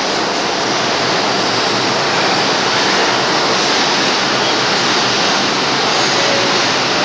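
Steady rushing noise of an R142 subway train standing at the platform with its doors open.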